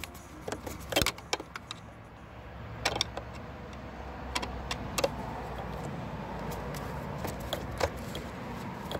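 Scattered clicks and scrapes of a metal screwdriver working at the plastic mass airflow sensor housing on a car's air intake, over a steady low hum.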